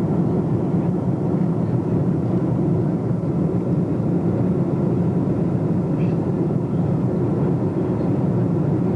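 Boeing 747-200 jet airliner: a steady, unchanging low noise of its engines and rushing air, heavy in the low end, with no rise or fall.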